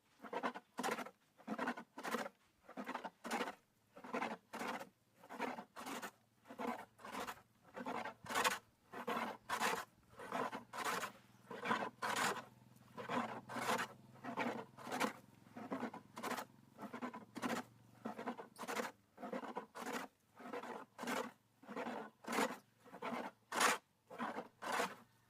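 Wood being worked by hand, probably with sandpaper, in steady back-and-forth rasping strokes, about two a second.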